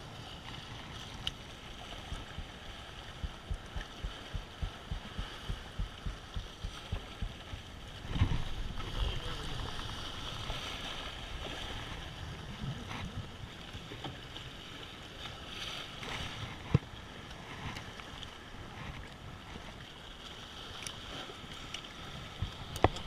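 Wind buffeting the microphone over waves washing against jetty rocks, with a louder gust about eight seconds in. For several seconds near the start there is a run of soft regular thumps, about two a second, and a couple of sharp clicks come later.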